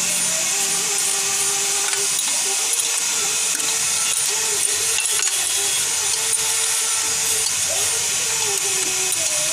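Steady machine noise, like a motor running: a constant hiss with a wavering mid-pitched whine.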